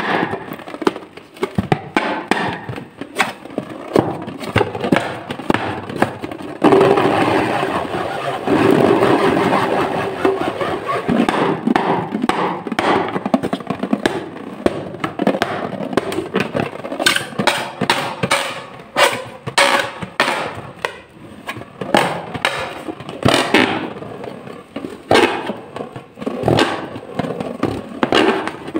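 Fingers rubbing and squeezing a rubber balloon: rubber scraping and squeaking against skin, with many sharp clicks and a held squeak from about seven to nine seconds in.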